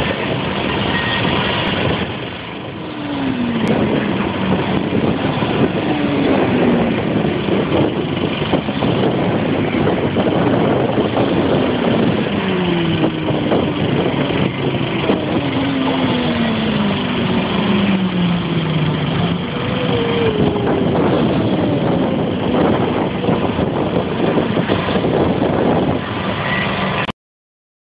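Several track-day motorcycles passing at speed one after another, each engine note falling in pitch as it goes by. The sound cuts off abruptly near the end.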